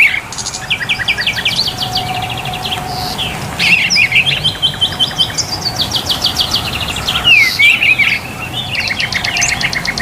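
Songbirds chirping and singing in fast, rattling trills, several series of different pitch overlapping and following one another.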